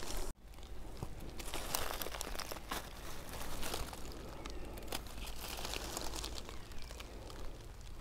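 Dry fallen leaves rustling and crackling as a hand handles freshly picked porcini mushrooms in the leaf litter, with a brief dropout about a third of a second in.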